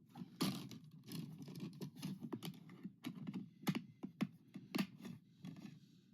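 Plastic DVD case being handled and opened: a run of irregular sharp clicks and taps, several a second, over light rustling.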